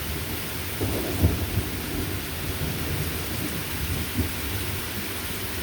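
Light rain falling with a steady hiss, while thunder rumbles low underneath, swelling briefly about a second in.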